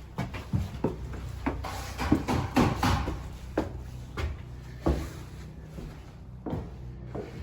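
A series of irregular knocks and clatters, thickest in the middle, over a steady low hum.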